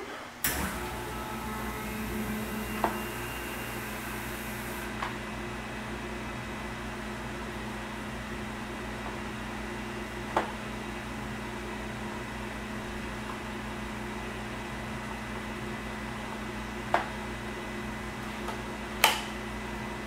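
A steady machine hum switches on about half a second in and keeps running, with a few sharp metallic clicks as a turbine blisk is clamped, tilted and turned on a work positioner; the loudest click comes near the end.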